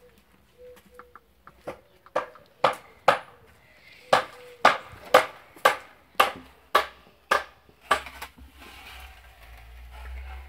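Silver carp slapping against a plastic tub: a run of sharp knocks, about two a second, for some six seconds.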